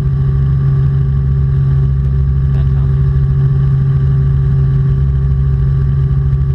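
Robinson R44 Clipper II helicopter in cruise flight: a steady drone of its six-cylinder Lycoming piston engine and rotors, with a constant hum and a few steady tones above it.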